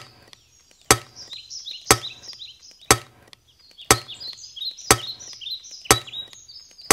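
Countdown timer ticking, one sharp tick a second, with faint high chirping between the ticks.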